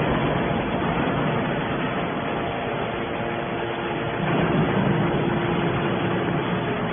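Hydraulic metal baler running: steady machine noise with a faint hum, a little louder about four seconds in.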